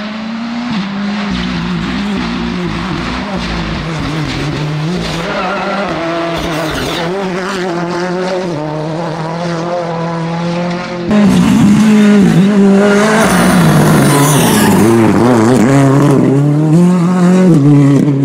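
Ford Fiesta R5 rally car's turbocharged four-cylinder engine, revved hard and lifted again and again as it drives a stage. It gets much louder suddenly about eleven seconds in, as the car passes close.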